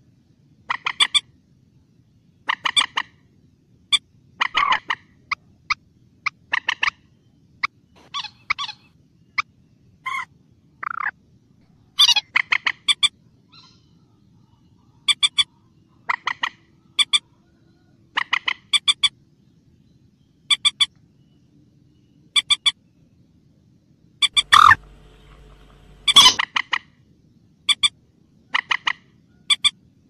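Common moorhen calling: sharp, short clucking calls, mostly in pairs, repeated about once a second. There is a short pause around halfway and two longer, louder calls about two-thirds of the way in.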